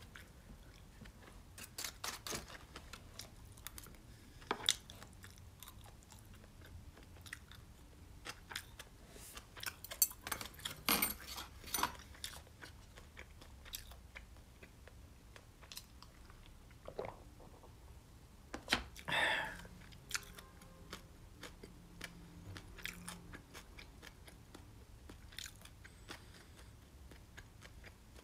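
A person chewing food close to the microphone, with scattered small crunches and clicks and a brief louder rustling sound about two-thirds of the way through.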